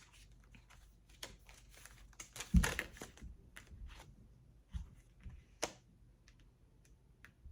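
Tarot cards being handled and shuffled by hand: scattered light snaps and clicks, with a quick run of them and a soft thump about two and a half seconds in, then a few more card clicks.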